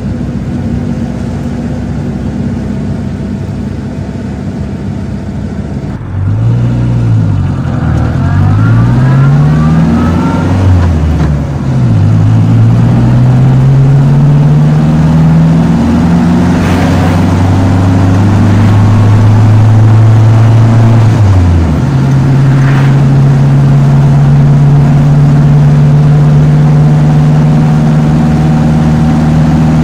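Renault 4CV's rear-mounted 750 cc four-cylinder engine driving along. It runs steadily at first, then is heard louder from inside the cabin from about six seconds in. Its note climbs and drops several times as the car accelerates through the gears, then settles to a steady cruising drone for the last several seconds.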